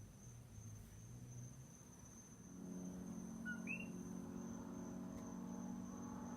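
A single coqui frog calls once midway: a short lower note, then a higher upward-sweeping note, its two-note 'co-qui'. A steady high thin whine runs underneath, and a low droning hum with several tones comes in about two and a half seconds in and grows louder.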